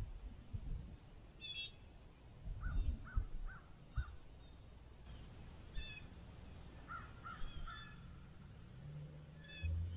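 Birds calling outdoors: short harsh calls, including a quick run of four, then a few more spaced out over a faint low rumble, with a couple of soft knocks. A steady low hum comes in near the end.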